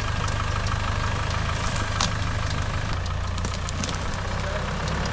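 Land Rover Discovery engine running steadily at low revs as the four-wheel-drive creeps along a narrow bush track, its note shifting slightly about three seconds in. A few short crackles and clicks sound in the second half.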